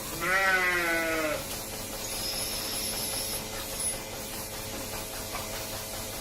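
A calf bawls once: a single bleating call of just over a second, dipping in pitch at its end, over a faint steady hum.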